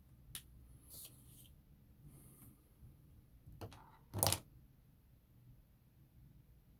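A few faint clicks and rustles over a low steady hum, the loudest a short burst about four seconds in.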